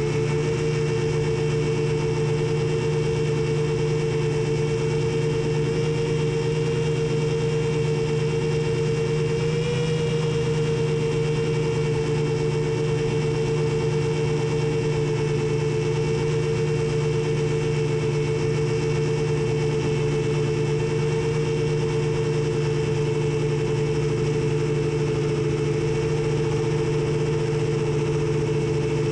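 A TBS G2 long-range FPV quadcopter's brushless motors and 7-inch propellers humming steadily in cruise, with a slight rise in pitch about ten seconds in.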